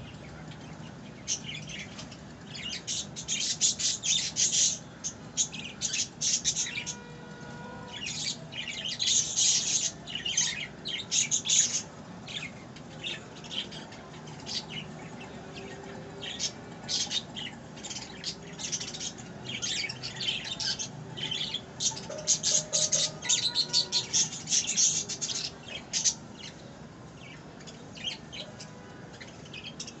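Pet budgerigars chattering: clusters of rapid, scratchy chirps and squawks that come and go every few seconds.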